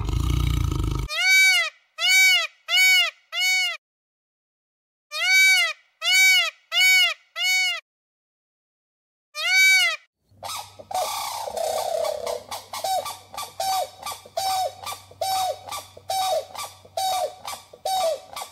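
Peacock calls: loud honking notes that rise and fall in pitch. They come first in groups of four, then about halfway through as a faster, steady series of about a dozen over a faint low hum.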